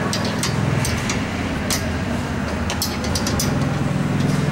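A roll-cage bolt being tightened with a wrench: irregular sharp metallic clicks from the tool and fittings over a steady low mechanical hum that swells twice.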